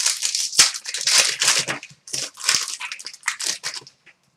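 Plastic-foil hockey card pack wrappers crinkling and crumpling as packs are opened. It is a busy run of rustling noise that stops about four seconds in.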